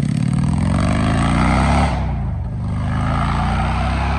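Vehicle engine accelerating: its pitch climbs for about two seconds, drops sharply as it shifts up a gear, then climbs again.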